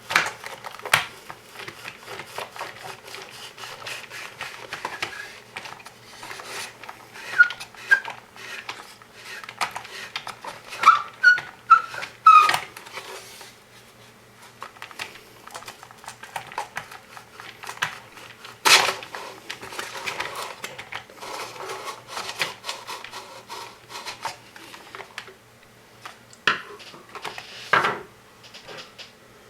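Small parts of a hobby robot being handled and fitted by hand: irregular clicks, taps and light scraping, with a few short squeaks and one sharp, louder click about 19 seconds in.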